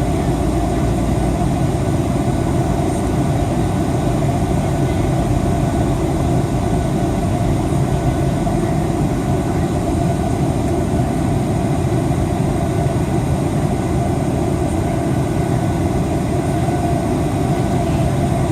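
Steady low rumble of a Boeing 737-800's jet engines and airflow, unchanging in level, with a few faint steady tones above it.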